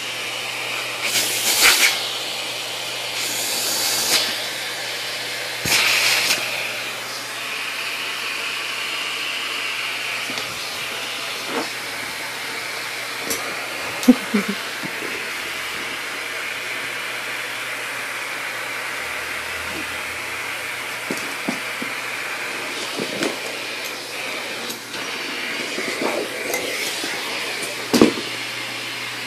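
Vacuum cleaner running with a steady hiss of air through its hose. There are several short, louder rushes of air in the first few seconds, and a couple of sharp knocks later on.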